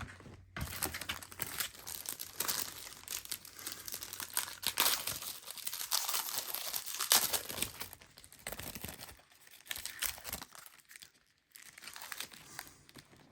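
Trading-card pack wrapper being torn open and crinkled, a dense crackling for most of the first eight seconds, then lighter, scattered crinkles.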